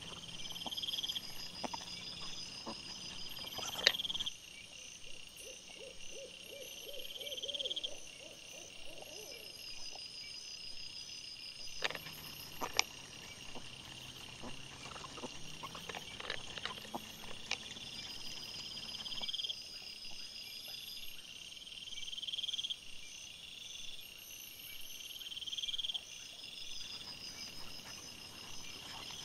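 Night insects chirping in a steady, evenly repeating pattern, with scattered clicks and knocks as wild boar root and feed on the ground. A short quavering call sounds about five seconds in.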